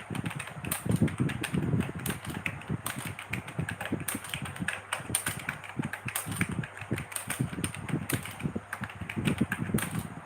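Typing on a computer keyboard: a quick, irregular run of key clicks, as during a typing test.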